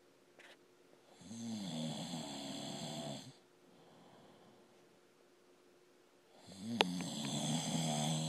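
A man snoring in his sleep: two long, loud snores about five seconds apart, each lasting about two seconds, with quiet breathing between. A few sharp clicks come during the second snore.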